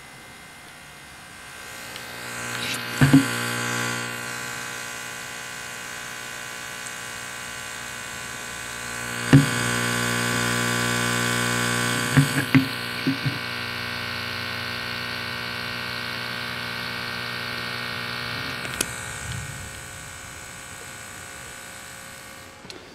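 Tweeter wired straight to a 120 V wall socket, buzzing with mains hum, overloaded and still playing after more than four minutes on mains power. The buzz swells and fades in steps, with sharp crackles and pops about 3 seconds in, at about 9 seconds, around 12 to 13 seconds and near 19 seconds.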